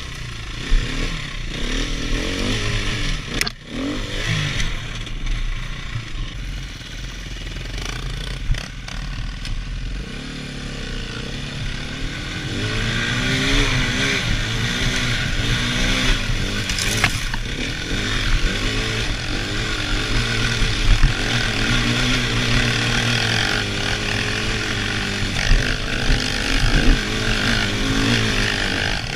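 Dirt bike engine running and revving, its pitch rising and falling with the throttle as it climbs. It gets louder about twelve seconds in, with a few sharp knocks along the way.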